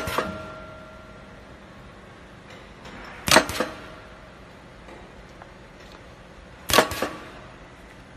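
Cutter on a protein bar extrusion line chopping the extruded slab into bars: a sharp double clack about every three and a half seconds, three times, the first with a brief metallic ring, over a steady machine hum.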